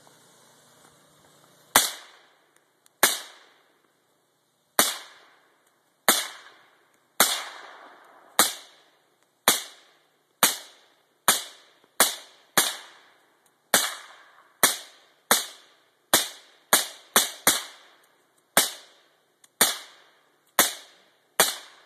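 Suppressed shots from a piston-driven AR-15 in 5.45mm fitted with a Constitution suppressor: about twenty-two semi-automatic shots at an uneven pace, roughly one a second and quicker in the middle, each a sharp report dying away over about half a second.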